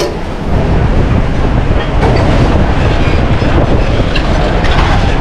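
Busy restaurant kitchen noise: a loud, steady low rumble with light clicks and clatter of plates and metal.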